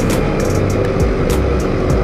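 Background music with a steady beat, over the steady drone of a motorcycle engine and wind rumble while riding.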